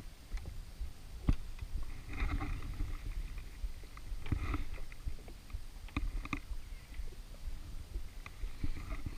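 Small waves lapping and slapping against the hull of a drifting jet ski over a low, steady rumble, with a few sharp knocks, the loudest about a second in.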